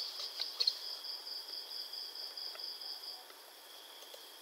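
Faint background chirping of insects: a high-pitched pulsing trill, about three pulses a second, over a steady high tone. The trill stops a little after three seconds in. A few soft clicks fall in the first second.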